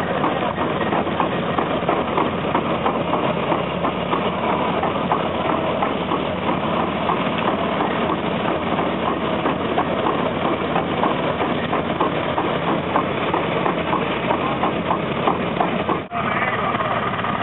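Engine of an antique Fageol truck running steadily under a dense rumble, with a stream of quick light ticks. The sound changes abruptly about sixteen seconds in.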